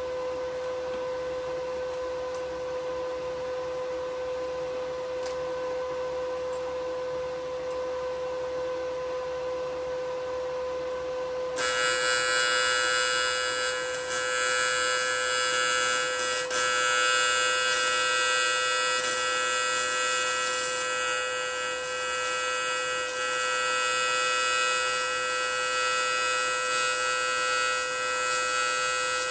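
A steady electrical hum, then about twelve seconds in a TIG welding arc on aluminium strikes and buzzes on continuously, harsh and high-pitched and louder than the hum.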